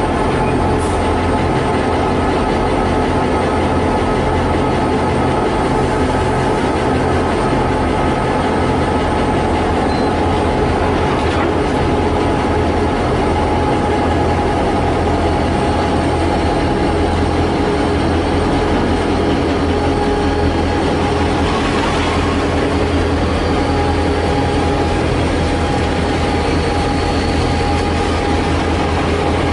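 CC202-class diesel-electric locomotives running with a steady, even low engine drone that holds unchanged throughout.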